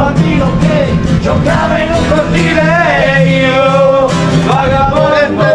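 Background music: a song with a singing voice over instruments with a steady beat.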